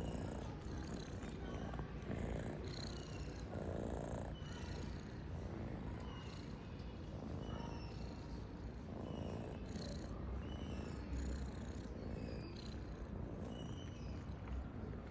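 Domestic cat purring close to the microphone: a steady low rumble that swells and eases with each breath, roughly every two seconds.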